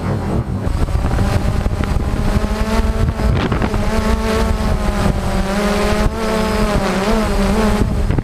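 DJI Phantom quadcopter's motors and propellers running in flight, heard up close from the camera on the drone: a steady hum with a whine whose pitch wavers up and down from about halfway through as the craft manoeuvres, with some wind noise.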